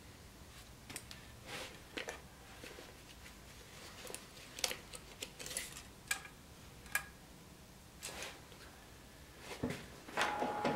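Scattered light taps, scrapes and rubbing as a wooden board is handled against a knife blade and a pencil marks along it. Near the end a steady faint hum comes in.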